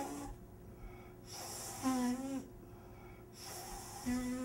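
A man breathing forcefully through his nose with one nostril pressed shut, three long airy nasal breaths about two seconds apart, each ending in a short steady hum.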